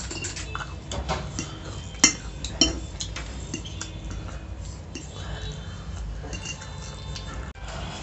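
Metal fork clinking and scraping against a plate while scooping pasta, with a run of small clicks and two louder sharp clinks a little over two seconds in, about half a second apart.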